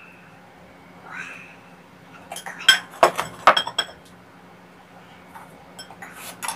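A knife cutting around and prying off the lid of a steamed kabocha squash: a brief scrape about a second in, then a quick run of sharp clinks of metal on china around three seconds in, and a few lighter taps near the end.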